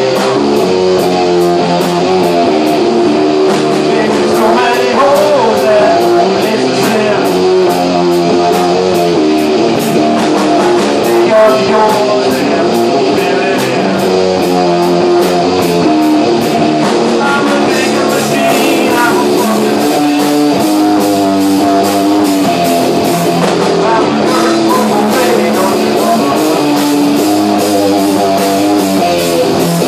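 Live rock band playing: electric guitar over a drum kit keeping a steady beat, loud and continuous.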